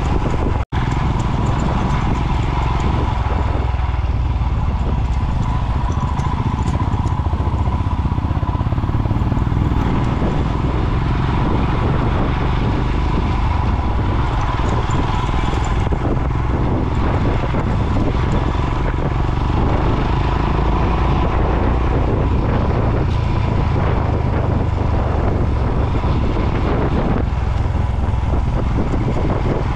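Single-cylinder adventure motorcycle on the move, its engine running steadily under a constant rush of wind and road noise. The sound cuts out for a split second near the start.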